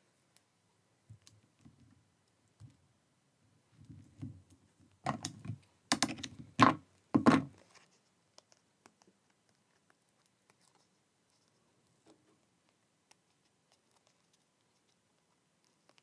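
Card panels being handled and pressed down on a glass craft mat: a few soft taps, then a cluster of about four louder knocks between five and seven and a half seconds in, then only faint ticks.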